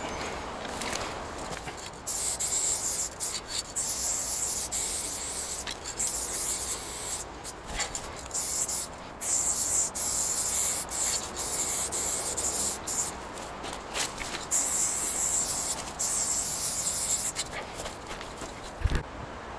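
Paint being sprayed onto a wall in a series of hissing spells, some a second or two long and some a few seconds long, with short pauses between them. Near the end there is a single low knock.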